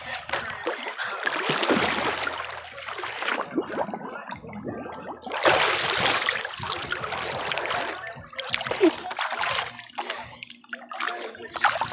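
Pool water splashing and sloshing close to the microphone, in several bursts that come and go.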